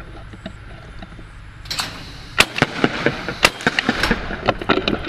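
Browning Citori 12-gauge over-under shotgun being swung and handled with a camera mounted on it: a quick run of sharp knocks and cracks that starts about two seconds in, the loudest a little after that.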